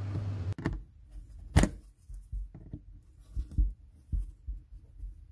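Scattered knocks and taps of a flathead screwdriver working at the edge of the engine splash shield, with one sharper knock about a second and a half in.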